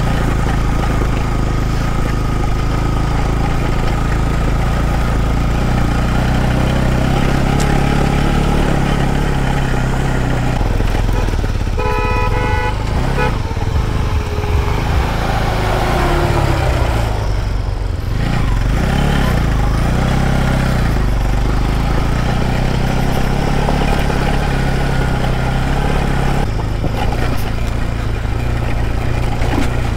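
Motorcycle engine running steadily while riding. A vehicle horn toots briefly about twelve seconds in.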